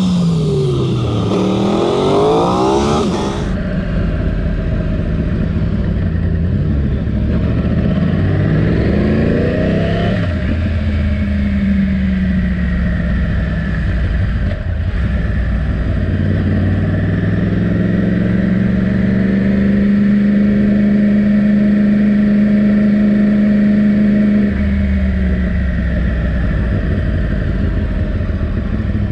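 Yamaha R1 sport bike's inline-four engine under way, a new engine being run in. The revs climb and fall quickly several times in the first few seconds, climb again and drop, then hold a steady pitch for several seconds before falling back near the end.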